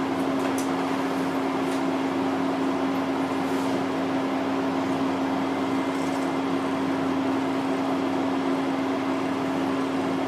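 Steady mechanical hum with one constant low tone, with a few faint light ticks.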